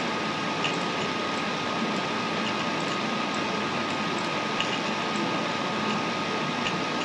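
Steady hiss of recording noise with a faint constant high whine running through it, and a few faint, widely spaced clicks from the computer mouse being used to select text.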